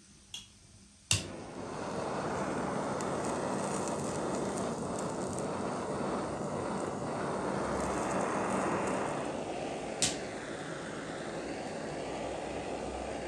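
Handheld butane gas torch on a screw-on canister clicking alight about a second in, then a steady hissing flame as it singes the skin of a plucked turkey. A second sharp click comes about ten seconds in.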